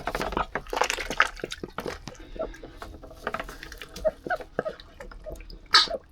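A duck splashing and dabbling in a shallow pan of water: irregular splashes, sloshes and drips, with one louder splash near the end.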